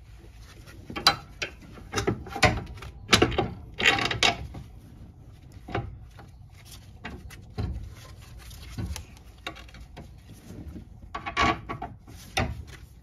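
Hand ratchet clicking in short runs, with metal clinks and knocks of tools and suspension parts, as bolts on a new lower control arm are fitted and snugged.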